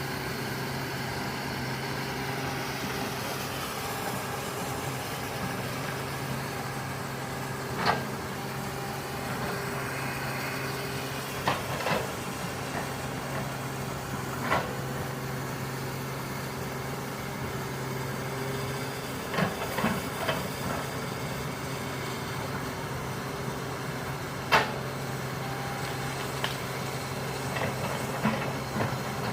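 Excavator's diesel engine running at a steady speed, with sharp knocks every few seconds, the loudest about 25 seconds in.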